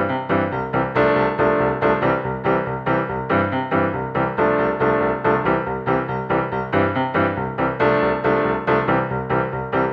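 Background music: a piano playing a steady run of quick, evenly spaced notes.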